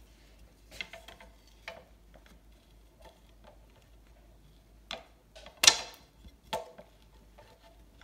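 Thin wooden dowel rolling pin knocking and clicking against a granite countertop as fondant is rolled out under the palms: scattered, irregular taps, with one sharper knock about two-thirds of the way through.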